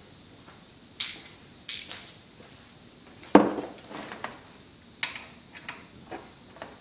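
Metal clinks and knocks of tools and parts in an engine bay while a new idler pulley is fitted: about eight separate sharp taps, the loudest and most ringing about three and a half seconds in.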